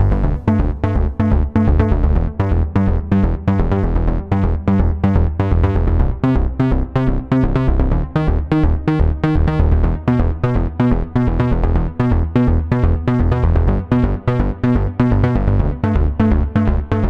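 Electronic background music with a steady, fast beat and strong bass.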